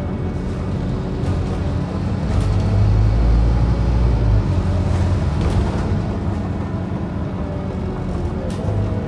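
Scania OmniCity bus's engine and drivetrain running as the bus drives along, heard from inside the passenger saloon: a steady low drone with a whine over it, the rumble swelling from about two and a half to four and a half seconds in, and a few brief interior rattles.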